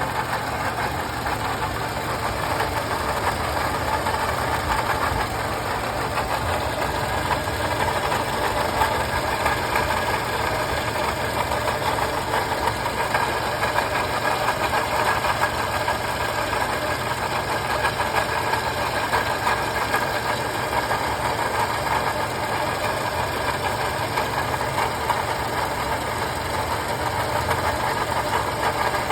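2015 Toyota Camry engine idling steadily with a rattle coming from the engine, which the owner cannot yet place or explain.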